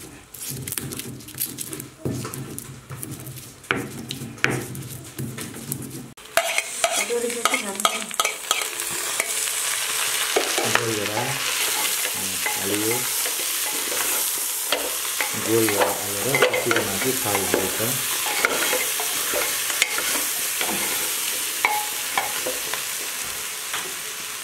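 A stone pestle knocks and grinds roasted whole spices in a stone mortar for about six seconds. Then goat meat fries in an open aluminium pressure cooker with a steady loud sizzle, with a wooden spoon stirring it.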